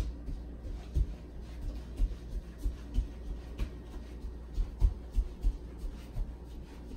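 Chew Fun glass electric kettle heating water toward the boil: irregular low pops and ticks, about two a second, over a steady low rumble as bubbles form on the heating plate.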